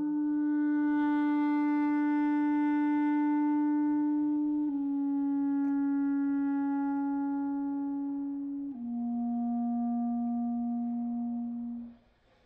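Solo clarinet playing three long held notes, each a little lower than the one before, the last one stopping shortly before the end.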